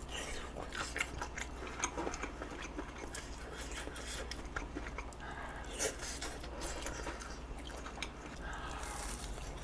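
A person chewing a mouthful of food, with irregular wet mouth clicks and smacks, and a breathy exhale about six seconds in and again near the end.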